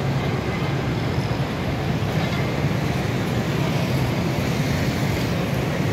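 Steady traffic noise: motorbike and car engines running at a level crossing, a continuous low rumble.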